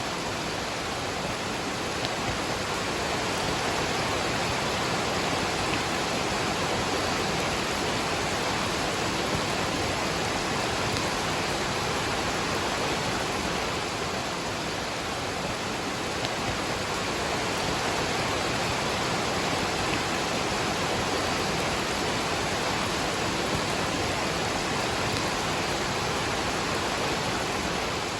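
Waterfall and rain: a steady, unbroken rush of water.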